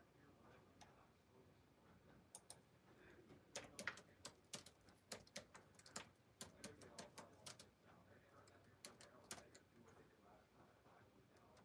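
Faint, irregular tapping and clicking, several taps a second in clusters, starting about two seconds in and thinning out near the end, like fingertips and nails typing on a phone's touchscreen.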